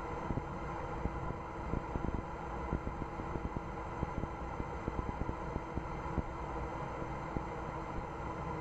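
Steady rumble and hiss with fast, irregular crackling and a few faint steady hum tones. This is the open live audio feed during the Electron rocket's second-stage engine burn.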